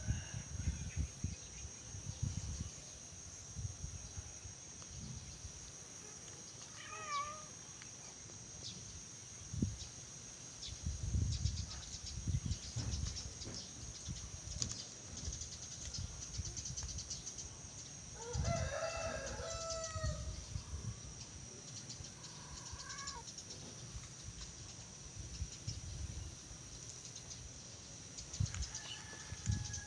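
Background ambience: a steady high-pitched insect-like trill, with a few short animal calls, the longest near two-thirds of the way in, over low rumbles on the microphone.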